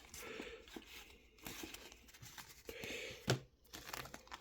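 Faint rustling and sliding of trading cards being handled and flipped through, with one sharp click about three seconds in.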